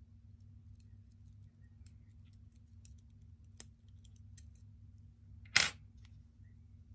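Steel tweezers ticking and scraping against a tiny metal watch part held in gloved fingers, with one sharper, louder click about five and a half seconds in.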